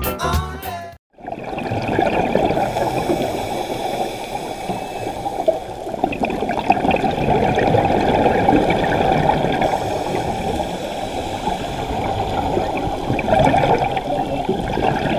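Background music cuts off about a second in. Then comes underwater ambience picked up through a dive camera's housing: a steady rush of water noise with dolphins faintly audible in it.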